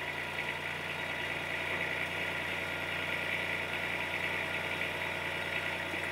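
Engine of the lifting machine running steadily at an even, constant speed while the suspended generator set is lowered onto its pad.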